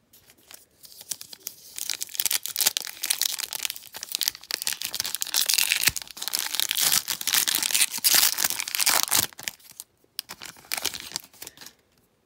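Foil wrapper of a Panini Prizm football card pack crinkling and tearing as it is ripped open, a dense crackle lasting several seconds. It breaks off about ten seconds in, followed by a shorter bit of rustling.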